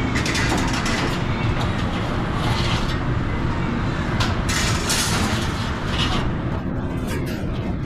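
Steel wire oven racks scraping and clattering against the rails and each other as they are slid out of a convection oven and handled, in several short bursts, over a steady low rumble.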